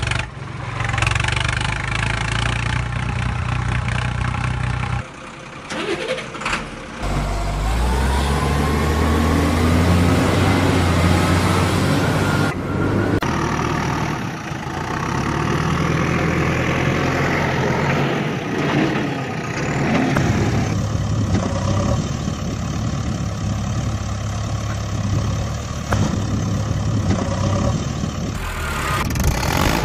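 Heavy engine sound, a steady low rumble at idle with revving. It drops out briefly about five seconds in and comes back with a rise in pitch about seven seconds in. It is an engine sound effect laid over the picture, since the plastic toy vehicles seen have no engines.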